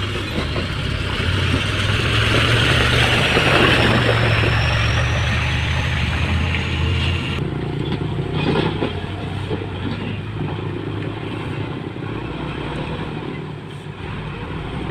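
Motor grader's diesel engine running under load, growing louder over the first few seconds and easing off about halfway through.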